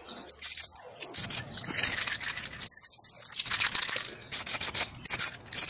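Aerosol spray-paint can spraying black paint onto a cast-iron brake master cylinder in short hissing bursts, with clicky rattles in between.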